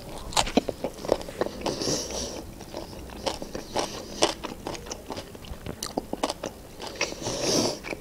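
A person biting into and chewing a chicken shawarma wrapped in flatbread: irregular crunchy chewing clicks.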